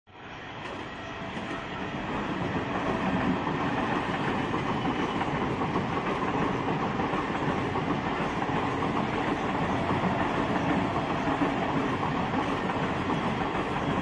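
MEMU electric passenger train running past on the line, the wheel and track noise building over the first three seconds and then holding steady.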